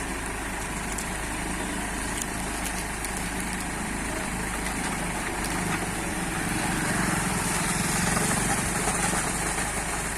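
Engine of a self-loading concrete mixer running steadily, growing a little louder about seven seconds in.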